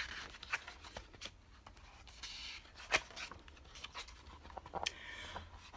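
Faint paper rustling and light clicks as a picture book's pages are turned, with one sharper click about three seconds in.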